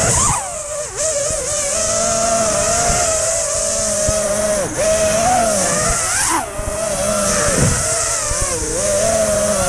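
FPV racing quadcopter's brushless motors and propellers, heard from the onboard camera: a steady high whine that dips and swoops in pitch several times as the throttle changes, over a constant rushing hiss of prop wash and wind.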